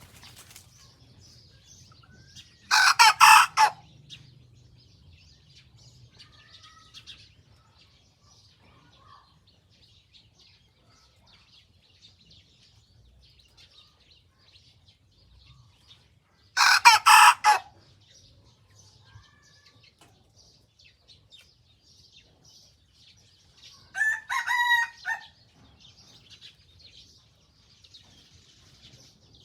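A young white cockerel practising its crow: three short, unfinished crows, the first two harsh and the third clearer and more tuneful. These are the immature crows of a bird still learning. Small birds chirp faintly in the background.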